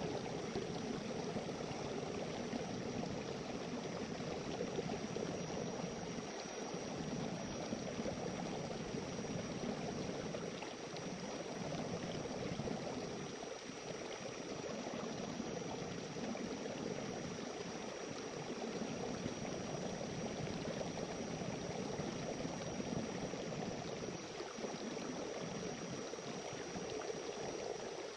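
Small river flowing: a steady, even rush of running water, with a faint steady high-pitched tone above it.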